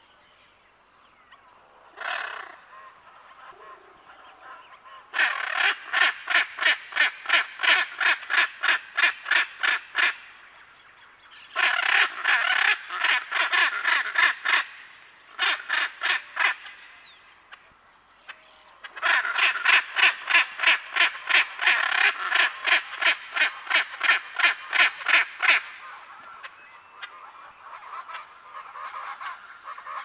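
A pair of hyacinth macaws calling in long, rapid series of loud calls at about three a second, in several bouts with short pauses between. Other parrots and birds call quietly in the background.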